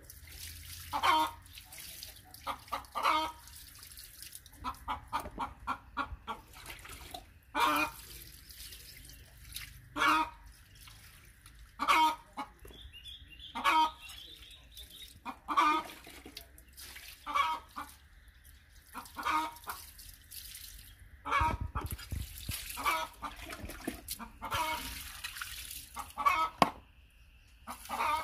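Chickens clucking, short calls repeating every second or two.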